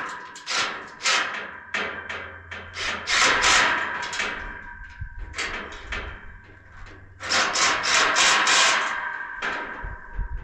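A hammer striking steel carport tubing with a metallic ring: spaced blows, then two rapid runs of strikes, one about three seconds in and one about seven seconds in.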